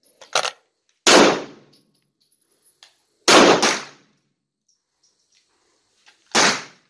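Gunshots: four loud sharp reports, each trailing off in a short echo. One comes about a second in, two fire in quick succession a little past the middle, and one comes near the end, with two fainter cracks right at the start.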